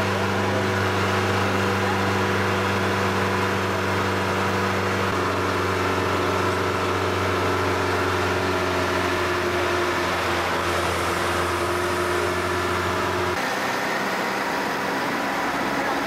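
Vehicle engine running with a steady hum, heard from the vehicle carrying the camera. The deepest part of the hum drops away about thirteen seconds in.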